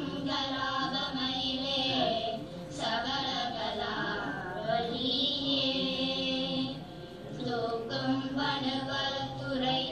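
A small group of girls singing a Tamil devotional hymn together in unison, in long held phrases with short breaks between them.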